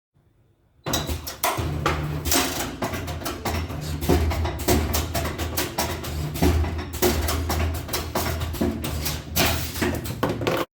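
CNC wire-bending machine running: motor hum that starts and stops in blocks as the wire is fed and bent, under a dense run of irregular clicks and metallic knocks. It starts suddenly about a second in and cuts off abruptly at the end.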